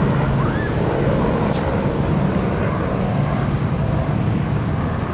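Steady low rumbling drone with a hum underneath, the sound of a running vehicle; a short hiss about one and a half seconds in.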